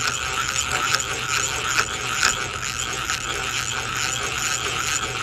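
Vintage hand-cranked eggbeater drill being turned steadily, its gears whirring with a faint regular click about twice a second, as a thin number 44 bit cuts slowly through aluminum angle under light pressure.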